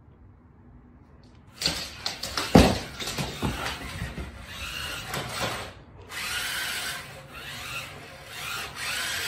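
Radio-controlled toy monster truck driving across a wooden floor, its small electric motor whirring in spurts, starting about a second and a half in. A loud thump comes about two and a half seconds in.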